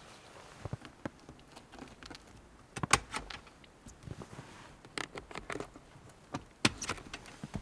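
Scattered clicks, knocks and light rattles of objects being handled, with two sharper knocks about three seconds in and near the end.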